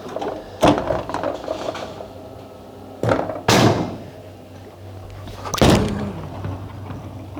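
Bowling alley: bowling pins crashing and balls thudding on the lanes, several sharp clattering crashes with ringing tails, about a second in, twice around three seconds, and again near six seconds, over a steady low hum.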